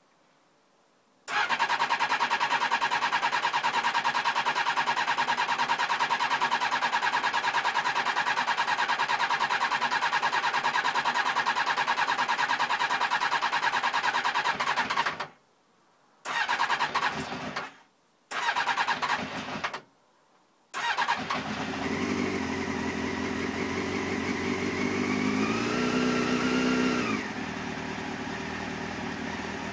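Motorcycle engine being cranked on its electric starter, a long steady spell and then two short bursts, before it catches about 21 seconds in. It runs, rises in pitch as it is revved, then falls back to a steady idle near the end, on its first start after a top-end rebuild.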